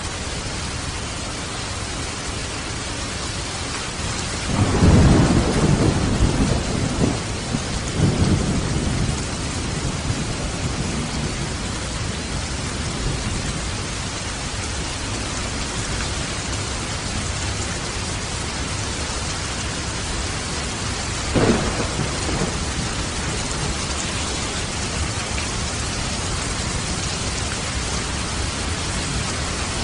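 Steady hiss of rain and falling water, with a long roll of thunder starting about four seconds in and swelling several times, then a shorter, sharper thunderclap about two-thirds of the way through.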